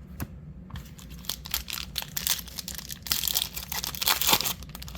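A basketball trading-card pack's wrapper being torn open and crinkled. The crackling starts about a second in and is loudest near the end.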